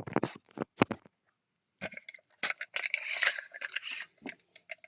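Handling noise of a tape measure against a steel lathe chuck: a few sharp clicks, a short pause, then a scraping rustle lasting a couple of seconds.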